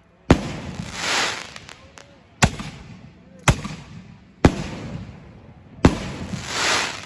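7-inch aerial firework shells going off in sequence from a mortar rack: five sharp bangs one to two seconds apart. A rushing noise swells and fades after the first and the last bang.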